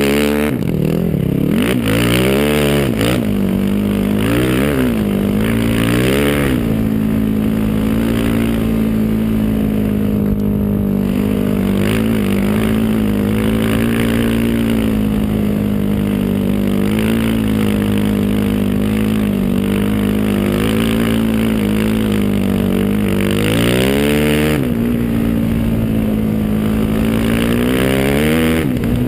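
Single-cylinder sport quad engine heard from onboard, revving up and down several times in the first few seconds, then holding a steady pitch, with one more rise and fall about five seconds before the end.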